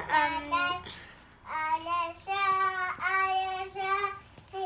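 A child singing a tune to herself in long, steady held notes, with a short break a little over a second in.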